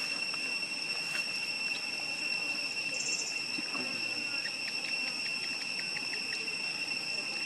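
Steady, high-pitched drone of insects, a continuous chorus of shrill tones. Partway through, a quick run of about nine light ticks sounds over it.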